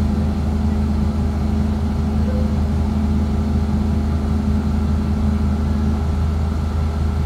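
Scania OmniCity double-decker bus engine running with a steady, even drone, heard from inside the upper deck.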